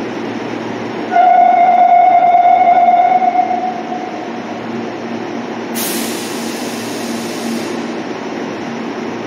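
Subway train at the platform with a steady rumble underneath. About a second in, a single held horn note sounds for about two and a half seconds, and around the middle comes about two seconds of compressed-air hiss.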